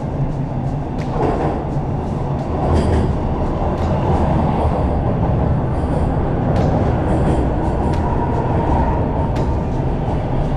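Toronto TTC Line 1 subway train running, a steady loud rail noise that swells about a second in.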